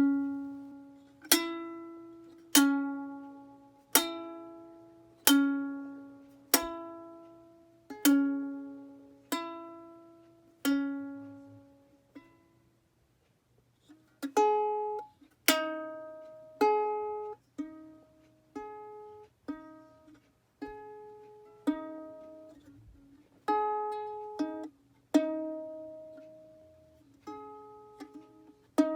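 Ukulele plucked one note at a time. At first a single note sounds about every second and a half, each ringing out and fading. After a short pause, a quicker run of notes follows at changing pitches.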